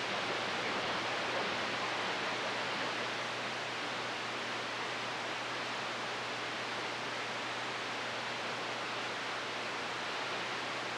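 Steady static hiss from an RCI-2995DX ten-meter radio's speaker, with a faint low hum under it. It is open-channel band noise with no station transmitting.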